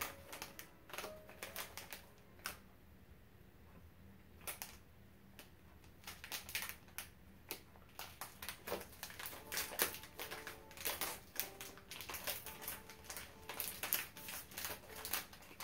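Plastic snack wrapper crinkling and crackling in the hands as a wrapped snack cake is opened and handled, in irregular bursts of sharp crackles that come thicker in the second half.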